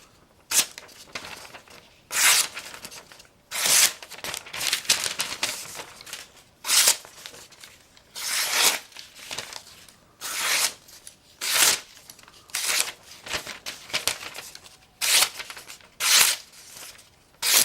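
Freshly sharpened carbon-steel Imperial bowie knife slicing repeatedly through paper, giving short tearing swipes roughly once a second with brief rustling between them.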